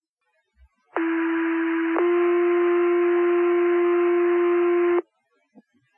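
Two-tone sequential fire-paging alert over a radio channel, with radio hiss under it: one steady tone for about a second, then a slightly higher tone held for about three seconds, cutting off sharply. These are the tones that set off the volunteer firefighters' pagers ahead of the voice dispatch.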